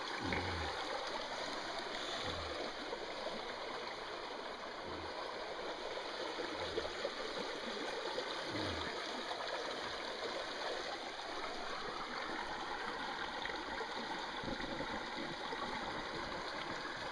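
Shallow rocky creek running steadily, an even rush of flowing water, with a few soft low thumps in the first half.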